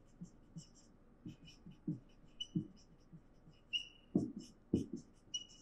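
Marker pen writing on a whiteboard: a run of short strokes with knocks as the tip meets the board and thin squeaks as it drags, the strongest strokes about four and five seconds in.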